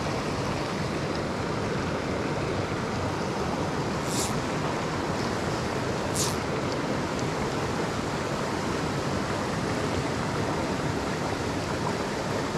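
Shallow, rocky mountain creek rushing steadily over riffles, with two brief high swishes about four and six seconds in.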